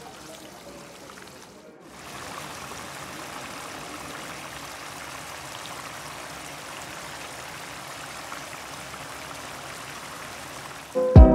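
Coconut-milk eel curry simmering in a wok, a steady bubbling hiss. Piano music comes in at the very end.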